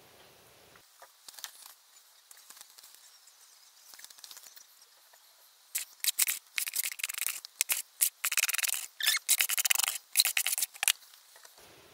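Coarse hessian scrim being handled for plaster reinforcement: a few faint rustles, then quick, scratchy rasping in dense bursts through the second half.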